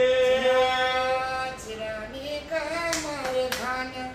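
A voice singing unaccompanied, holding long notes at first and then moving up and down in pitch. A few sharp clacks are heard near the middle and end.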